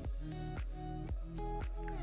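Background music: an electronic track with a steady beat of about two beats a second over held chords.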